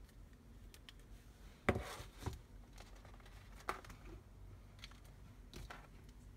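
Handling noise from a plastic PAR56 LED pool lamp being set down and handled: a few short knocks and rustles, the loudest about two seconds in.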